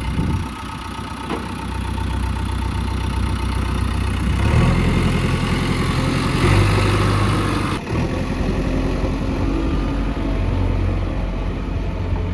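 Diesel engine of a JCB 3DX backhoe loader running, its note rising and strengthening about four and a half seconds in as the machine works.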